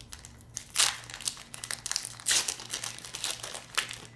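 Foil wrapper of a Pokémon TCG booster pack crinkling and tearing as it is ripped open, in irregular bursts, the loudest about a second in and again just past two seconds.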